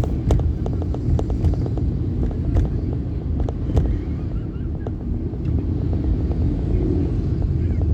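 A vehicle travelling along a road: a steady low rumble with many short clicks and knocks scattered through it.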